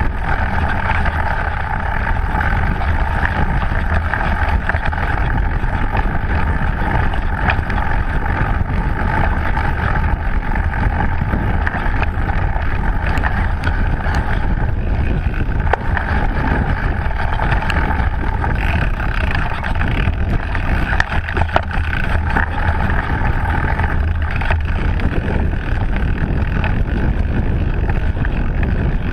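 Mountain bike ridden fast over a dirt forest trail: steady wind rush and rumble on the microphone over tyre noise, with frequent small knocks and rattles from bumps, thickest in the middle.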